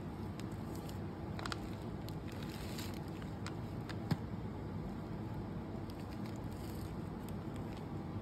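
Steady low background rumble with scattered light clicks and crackles and one sharp click about four seconds in, from a gloved hand handling a plastic cup of risen polyurethane foam.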